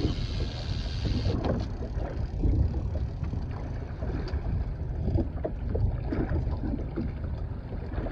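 Wind buffeting the microphone, with water lapping and slapping against a small boat's hull.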